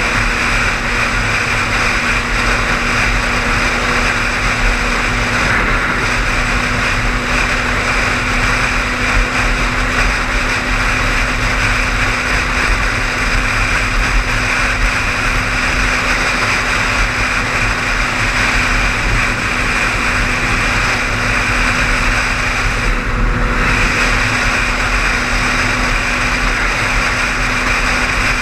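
Car driving steadily along an interstate highway: an even rush of road and tyre noise with a steady engine hum.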